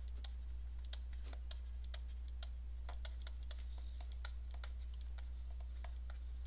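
Light, irregular clicks and taps of a stylus writing on a tablet, a few per second, over a steady low hum.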